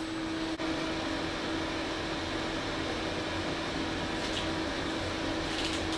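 Steady air-conditioning hum inside a cruise ship, with a faint constant tone under it.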